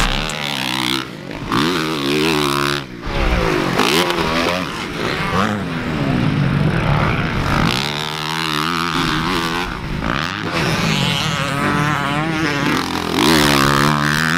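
Dirt bike engines revving up and backing off as they are ridden around a motocross track, the pitch climbing and dropping again and again, with a couple of brief dips about one and three seconds in.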